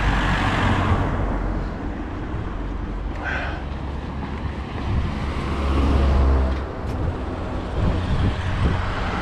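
Motor vehicle engine running with a low, steady hum that grows louder about two-thirds of the way in, over general road traffic noise.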